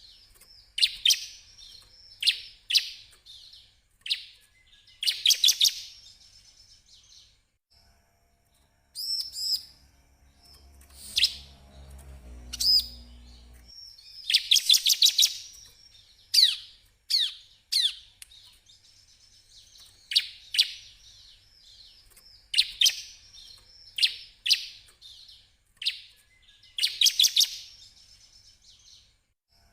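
Bar-winged prinia (ciblek) singing: sharp, high-pitched chirps repeated every second or two, with short rapid trills among them. A faint low rumble sits underneath for a few seconds in the middle.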